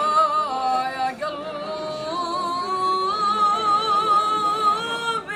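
A boy singing an Arabic song, drawing out long held notes with a wavering vibrato and melodic ornaments.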